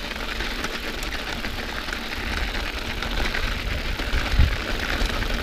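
Mountain bike ridden over a snowy forest trail: a steady crunching and crackling of the tyres on packed snow, with a low rumble underneath and a thump about four seconds in.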